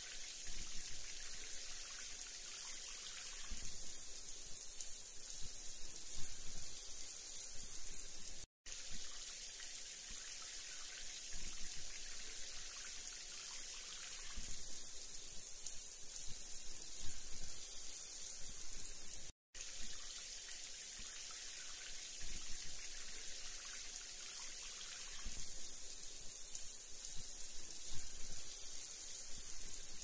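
Steady rain falling: an even hiss with scattered heavier drops pattering. The sound cuts out to silence for a split second twice, about 8.5 and 19.5 seconds in.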